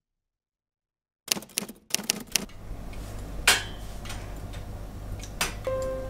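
Wooden knitting needles clicking quickly for about a second, starting a little over a second in. Then a wood fire burns in a stove with a steady low rumble and a few sharp crackles, and soft music comes in near the end.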